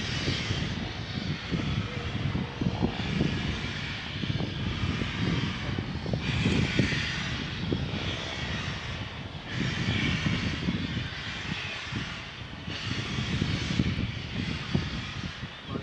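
Distant steam locomotive working at the head of a train, with wind rumbling and buffeting on the microphone. A hiss swells and fades every few seconds.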